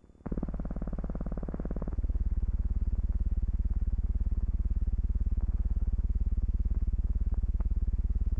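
Loud, low buzzing drone made of rapid, even pulses. It starts suddenly, turns deeper and heavier about two seconds in, and stops abruptly. This is noise from the transfer of a silent film, rising and falling with the bright picture, not a recorded aircraft engine.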